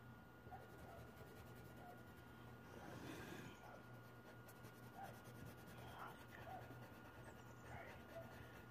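Faint scratching of a coloured pencil on paper in short, irregular colouring strokes, over a low steady hum.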